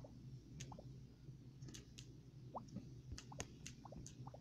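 Faint, irregular clicks and small plops of typing on a phone's touchscreen keyboard, about a dozen key presses, over a steady low hum.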